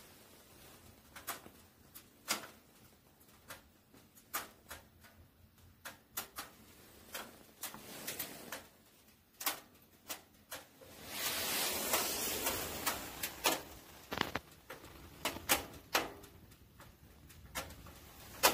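Wood fire crackling inside a closed wood-burning camping stove, with irregular sharp pops and a stretch of hissing about eleven seconds in.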